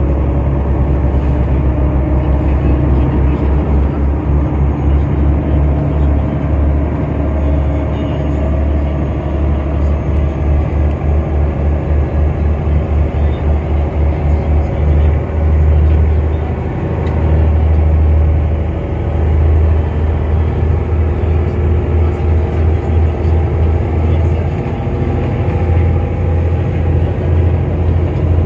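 Passenger boat's engines droning steadily, heard from inside the cabin, with a fast low throb underneath.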